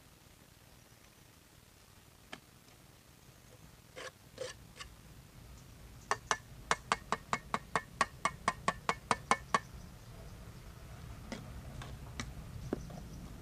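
Sharp knocks: a few scattered ones, then a fast even run of about sixteen in three and a half seconds, about four or five a second, then a few more near the end.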